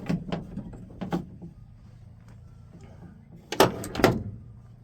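Hand work inside a pickup truck door: scattered clicks and light knocks, then two loud sharp metal knocks about three and a half and four seconds in.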